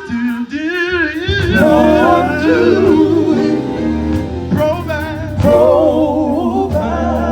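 Live gospel music: a lead singer holds and bends drawn-out notes with heavy vibrato over a band with steady low bass notes.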